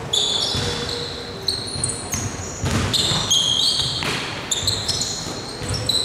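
A basketball bouncing on a hardwood court and sneakers squeaking in many short, high squeals, with low thuds of players' footsteps.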